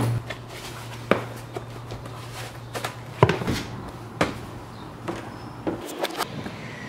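Footsteps on a hard floor: a handful of sharp, unevenly spaced steps and scuffs over a low steady hum that stops near the end.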